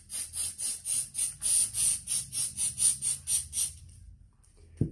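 Aerosol can of spray adhesive hissing in short, rapid bursts, about five a second for nearly four seconds, as a first coat of glue is sprayed onto a small sisal-fibre bush. A brief low knock near the end.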